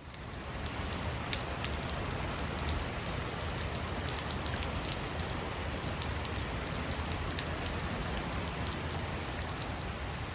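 Steady rain falling, with scattered drops ticking sharply on a hard surface.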